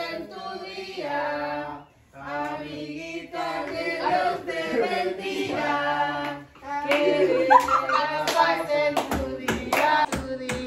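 A small group singing a birthday song together, with hand clapping that gets sharper and more frequent over the last few seconds.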